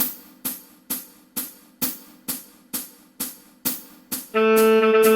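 A count-in of sharp even clicks, a little over two a second. About a second before the end a tenor saxophone comes in on a held note.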